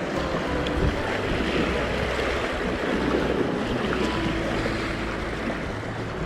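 Sea waves washing against the shore, with steady wind buffeting the microphone.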